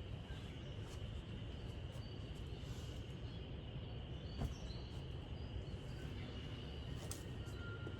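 Outdoor ambience of steady wind rumbling on the microphone, with a faint steady high-pitched hum above it and a soft knock about four and a half seconds in.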